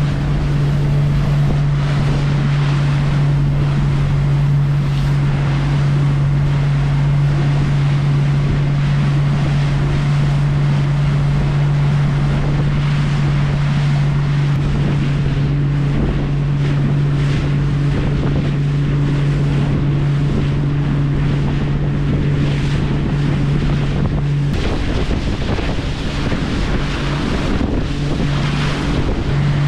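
A boat's engine running at a steady hum, with wind buffeting the microphone and the wash of water around the hull. Near the end the engine's hum drops away for a few seconds, then comes back.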